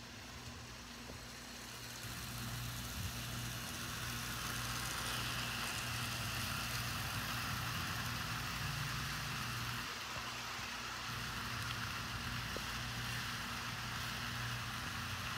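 Model train running on the layout track: a steady motor hum with wheel and rail noise that grows louder a couple of seconds in as the train comes closer, then eases a little.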